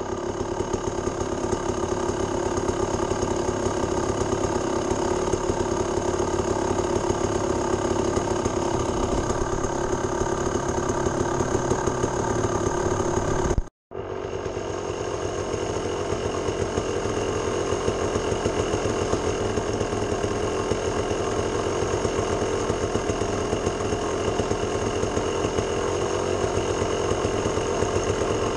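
ATV engine running at a steady speed while riding along a rough trail, heard from on board. The sound cuts out for an instant about halfway through, then carries on.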